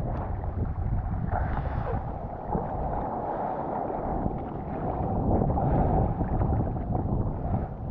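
Strong offshore wind rumbling on the microphone over the wash of sea water around a surfer, growing louder about five seconds in.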